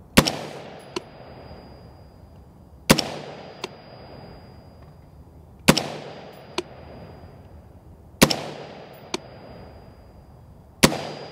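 Brownells BRN-Proto, a 20-inch-barrelled replica of the late-1950s ArmaLite AR-15 prototype, firing five slow semi-automatic shots of 5.56 mm M193 ball, about two and a half to three seconds apart. Each shot is followed by an echo that fades over a second or so.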